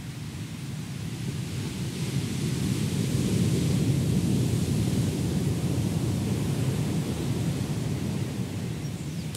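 Ocean surf: a steady low rumble and hiss of waves breaking on the beach, swelling to its loudest about four seconds in and easing off again.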